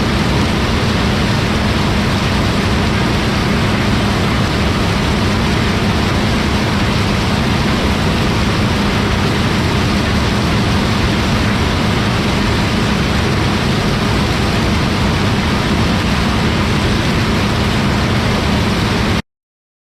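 John Deere combine running steadily, its engine and machinery making a loud, even drone with a low hum, which cuts off suddenly near the end.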